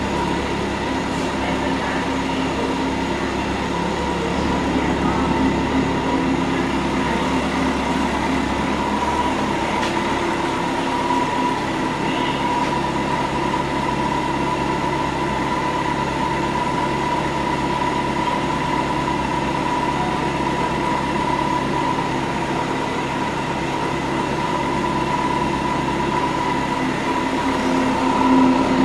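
2008 Kawasaki Concours 14's inline-four engine idling steadily through the stock muffler with its catalytic converters removed, a little coarser but not loud. The deepest part of the sound drops away about nine seconds in.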